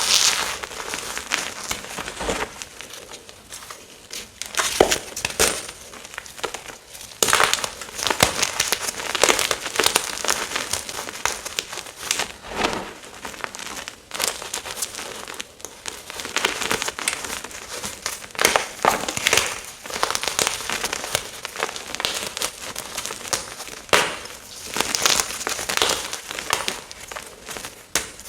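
Blocks of gym chalk being crushed and crumbled, giving a run of irregular crunching and crackling with sharp loud crunches scattered through.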